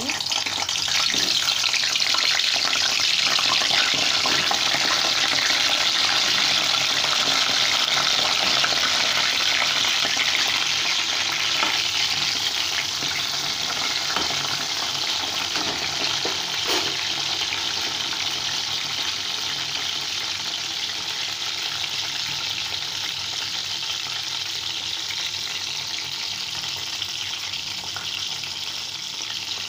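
Stuffed small brinjals frying in hot oil in a kadai: a steady, loud sizzle, strongest over the first ten seconds or so and then slowly easing off, with a few light taps of a metal spoon turning them.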